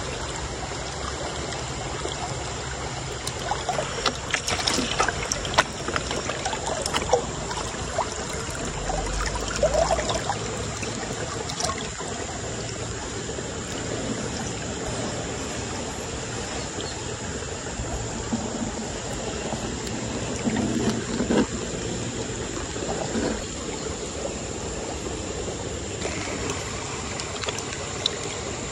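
Water trickling and sloshing as a plastic gold pan is worked in a shallow river, with a few louder splashes about four to seven seconds in and again around twenty seconds in, over the steady running of the stream.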